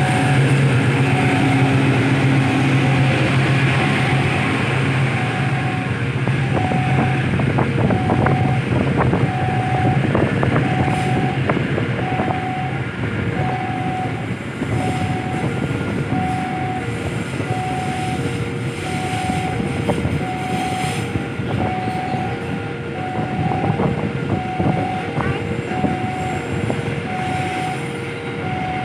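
Container freight train rolling over a level crossing, with the rumble and clicks of wheels on rail; a CC 206 diesel locomotive's engine drone is heard for about the first twelve seconds, then the wagons. Over it the crossing's warning alarm sounds steadily, alternating between a high and a low tone about once a second.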